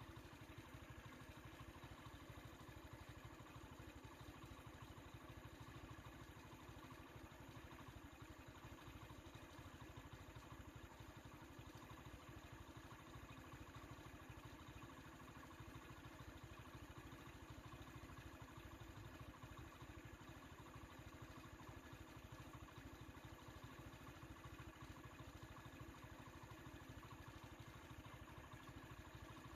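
Near silence: a faint, steady low hum with no distinct sounds.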